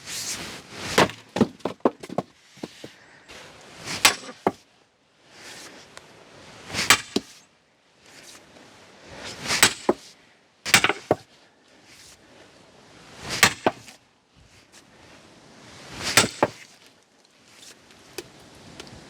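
An axe splitting firewood logs on a chopping block: about seven sharp chops, roughly every three seconds, with lighter knocks of wood in between.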